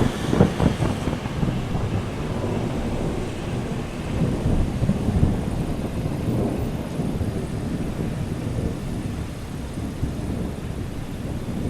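Thunder rumbling low and long during a thunderstorm, loudest at first, swelling again about four seconds in, then rolling on steadily, with rain hissing faintly underneath.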